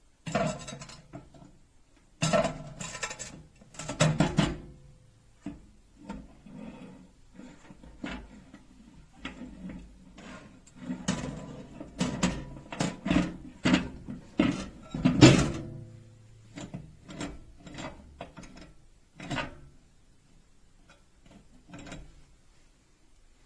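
Irregular clatter of hard objects being handled: a long run of clicks and knocks with a short ring after some, the loudest about two thirds of the way through.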